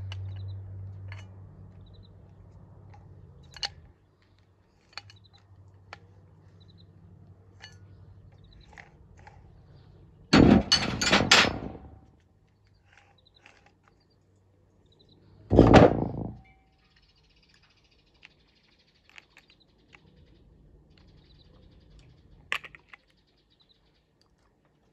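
Workshop handling noises around a metal workbench: a low hum that fades over the first few seconds, scattered light clicks and knocks, then two loud clattering bursts about ten and fifteen seconds in, the first with a brief ring after it.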